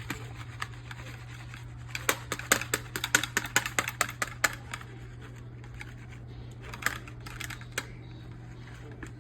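Whisk clicking rapidly against the side of a bowl while a mayonnaise-based dressing is whisked by hand, in a dense run of clicks about two seconds in, then only a few scattered ticks. A steady low hum runs underneath.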